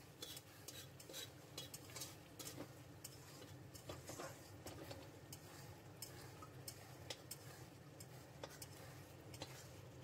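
Long-handled metal spatula scraping and clinking against a metal kadai while stirring a thick chicken masala being sautéed dry (kosha). Faint, irregular scrapes and taps, many in quick succession.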